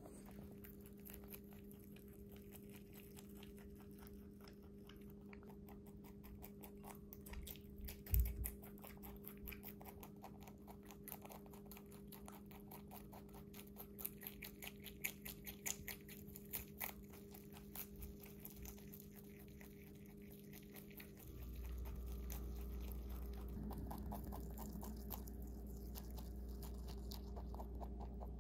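A pet rabbit chewing fresh lettuce and parsley: fast, fine crunching clicks, under a steady low hum. One sharp thump comes about eight seconds in, and a low rumble comes in about three-quarters of the way through.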